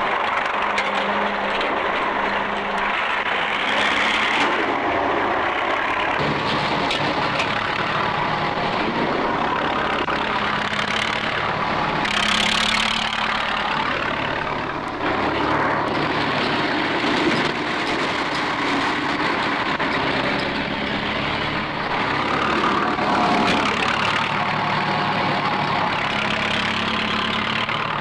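Heavy earthmoving machinery engines running under load, swelling louder a few times as the machines work.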